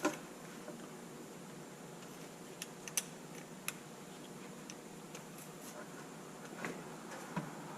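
A few faint, sharp clicks and taps of an Allen key against the RC truck's shaft and suspension parts as the stuck shaft is pushed at.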